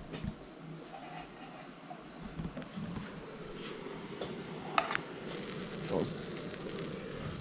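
Crickets chirping in an even, rapid pulse, about four chirps a second, with a sharp clink from kitchenware about two-thirds of the way through and a brief hiss soon after.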